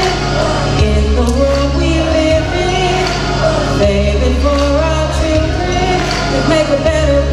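Large children's choir singing over music with a heavy bass line.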